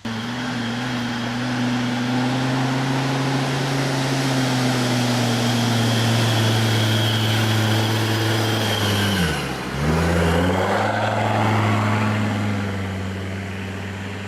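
An off-road 4x4's engine running hard at high, steady revs. About nine seconds in the revs drop sharply for about a second, then climb back to the same level.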